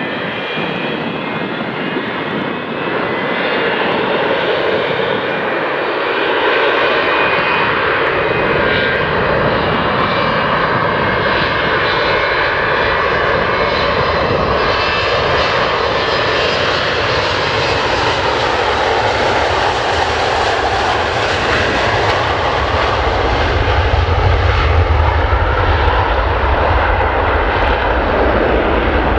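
Boeing 727's three JT8D low-bypass turbofans spooling up to takeoff thrust for a static takeoff, getting louder a few seconds in. Then steady, loud jet noise through the takeoff roll, with a deep rumble building near the end as the trijet lifts off and climbs away.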